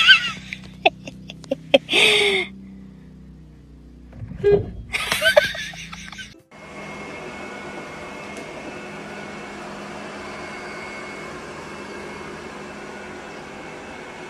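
Three short, loud voice-like bursts over background music, then a robot vacuum running with a steady whir and a thin high whine from about six and a half seconds in.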